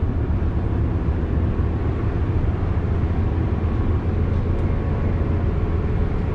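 Steady low rumble of a cruise ship's engines and machinery heard on board, an even drone with no breaks.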